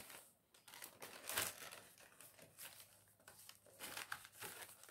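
Faint, irregular crinkling and rustling of a small paper gift box being handled and folded, with a slightly louder rustle about a second and a half in and again near the end.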